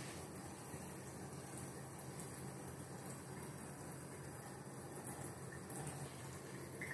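Water from a bathroom tap running steadily, an even rushing hiss.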